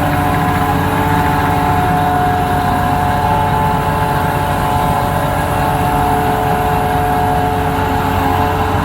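AMCC Guardian crane's boom hoist lowering the boom at low speed, warmed up, with the engine running steadily and a steady high whine from the hoist drive on top: the noise the owner is showing.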